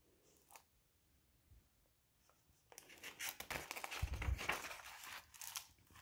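A paper page of a picture book being turned by hand: a soft rustle lasting about three seconds, with a low thump about four seconds in.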